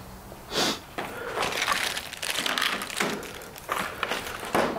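Barber's scissors snipping through wet mannequin hair in short, irregular bursts, with comb and handling rustles.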